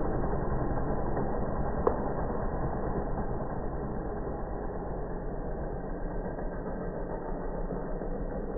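An engine running steadily at a low, even pace, slowly fading, with one sharp click about two seconds in.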